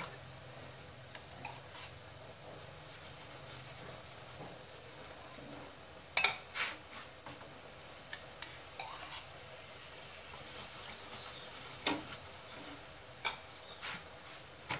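A metal spoon clinks sharply several times against a small bowl and an iron griddle (tawa) while a paratha cooks, with a faint sizzle between the clinks. Most of the clinks come in the second half.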